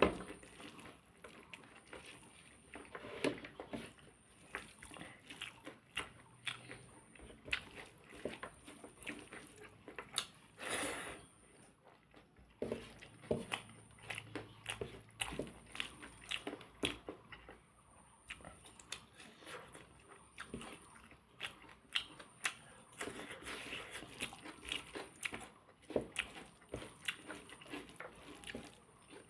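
A person eating pork, chewing and biting with many small, irregular crunching and smacking sounds.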